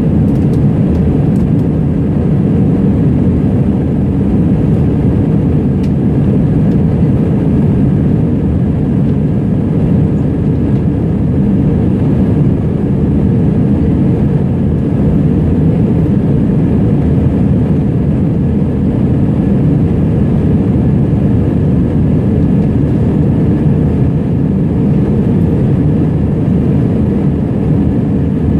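Airliner cabin noise in flight: the steady, loud low rumble of engines and rushing air heard from inside the cabin.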